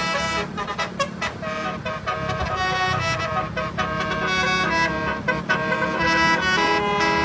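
Basuri telolet musical horn playing a dangdut tune: a run of held horn notes stepping from pitch to pitch, with a few short clicks in the first second or so.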